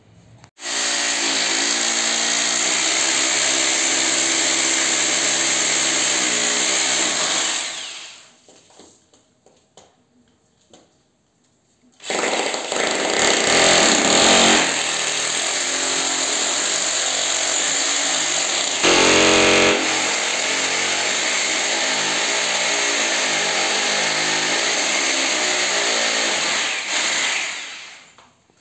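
Corded electric drill boring into a wall overhead, run in two long stretches: about seven seconds, a pause of about four seconds, then about fifteen seconds, with a brief louder surge partway through the second.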